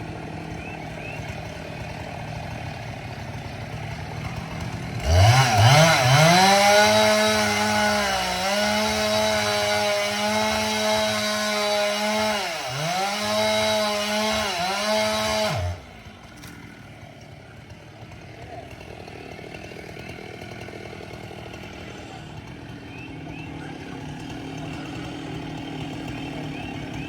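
Chainsaw revved up to full throttle about five seconds in, running high for some ten seconds with two short dips in pitch as it takes load in the wood, then stopping abruptly. A low steady hum lies under it before and after.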